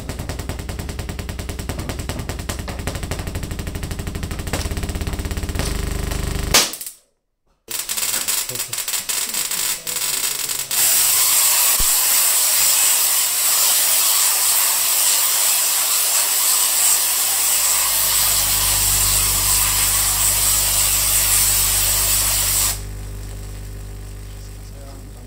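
Tesla coil firing its sparks: a loud, steady crackling discharge that starts about eleven seconds in and drops away sharply near the end. Before it, a rapid even ticking cuts off suddenly, followed by a second of silence.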